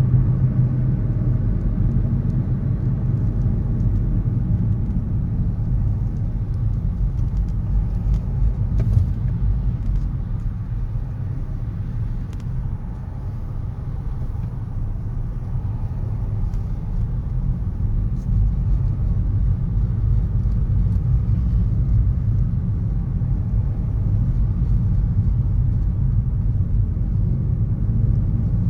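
City road traffic: a steady low rumble of cars, with a few faint ticks scattered through it.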